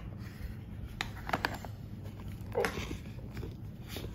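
Rigid Cardboard Cartier presentation boxes being handled: a few light knocks and taps as the lid is lifted off and the jewellery case is moved and set down, about a second in, again just after, and once more past halfway.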